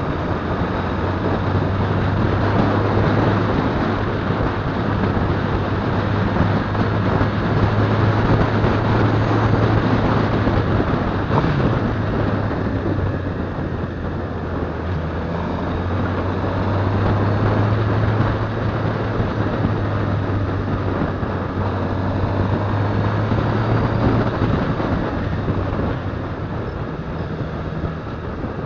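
Motorcycle engine running at a steady cruise under wind and road noise, heard from the riding bike itself; the engine note eases off near the end.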